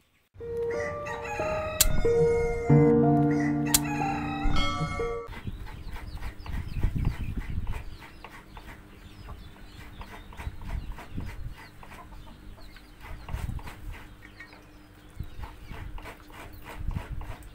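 A short musical sting of held chords with two sharp cymbal-like hits. It stops about five seconds in and gives way to farmyard ambience: chickens clucking, with light ticking and rustling.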